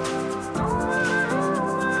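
Background music: a melodic instrumental track with a steady pulse, sustained chords and a gliding lead line.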